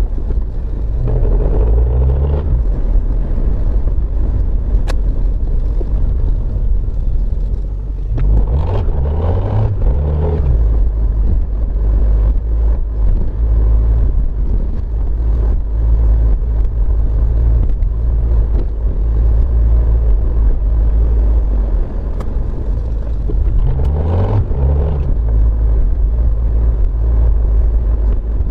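Car engine and road noise heard from inside a moving car: a steady low rumble, with the engine pitch rising as the car accelerates about a second in, again around eight to ten seconds in, and near the end.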